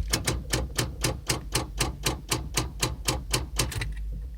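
Rapid, even clicking from a 1996 Buick Roadmaster's electrical system with the key on and the engine not cranking, about four clicks a second, stopping near the end.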